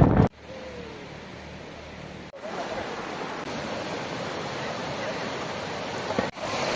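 Steady rush of flowing river water, quieter at first and louder from about two seconds in.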